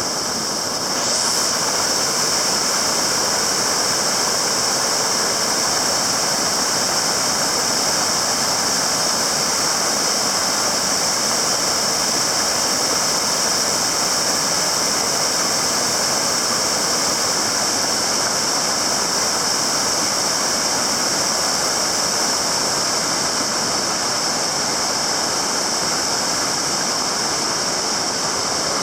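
Shifen Waterfall's falling water making a loud, steady rushing noise, with a steady high-pitched hiss over it.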